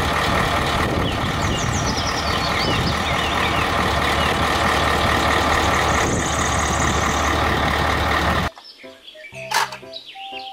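Three-axle diesel dump truck running with its tipper bed raised: a loud, steady engine noise with a few held tones over it. About eight and a half seconds in it cuts off abruptly to quieter background music with bird chirps.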